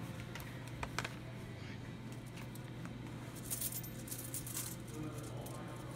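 Loose coins clinking and jingling in a hand as change is sorted to find quarters: a couple of sharp clicks about a second in, then a longer jingle a little past the middle. A steady low hum runs underneath.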